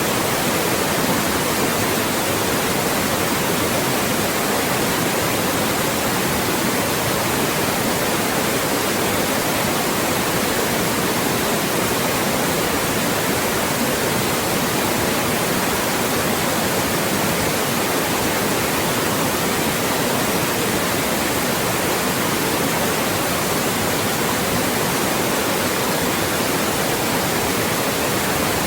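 Loud, steady white noise: an even hiss that does not change.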